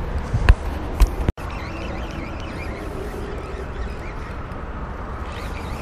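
Wind buffeting an action-camera microphone, with two sharp knocks about half a second and a second in. After a brief dropout there is steady wind and open-water noise.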